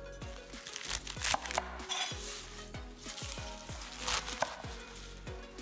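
Chef's knife slicing through crisp water spinach (kangkong) stems and leaves on a wooden cutting board, with a handful of crunchy cuts, the loudest about a second in and again near the four-second mark. Background music plays underneath.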